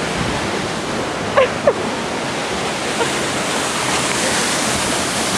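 Steady, loud rushing of water, an even roar with no breaks. A short falling vocal glide is heard about a second and a half in.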